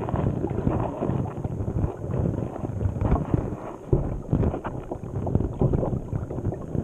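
Muffled, uneven rumbling and buffeting on a GoPro camera sitting in murky river water, with many small irregular knocks of water moving against its housing.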